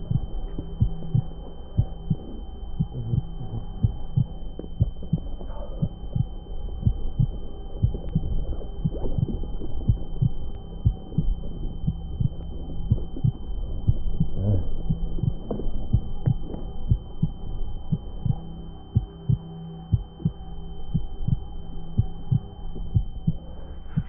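Film sound design for an attack of sensory overload: a heartbeat thumping again and again over a low droning hum, with a steady high-pitched ringing tone held above it.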